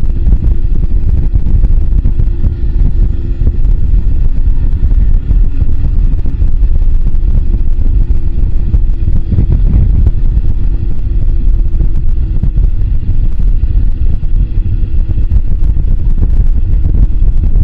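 Moto Guzzi V85TT's air-cooled transverse V-twin running steadily while riding, under heavy wind rumble on the microphone.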